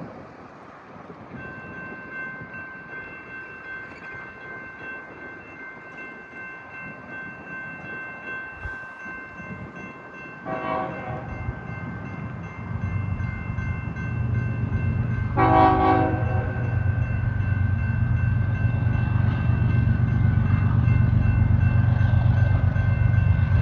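Diesel freight locomotive horn giving two short blasts about five seconds apart, warning people on the track, while the low rumble of four GE diesel locomotives swells from about twelve seconds in as the train approaches.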